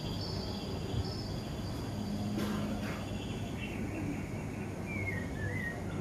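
Outdoor garden ambience: a steady low hum under faint insect and bird calls, with a wavering call falling slowly in pitch near the end.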